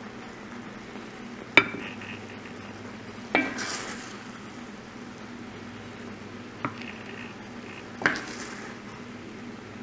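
A serving spoon clinking four times against a ceramic platter as creamy pasta is spooned onto it; the first clink is the loudest, and a soft scrape follows two of them.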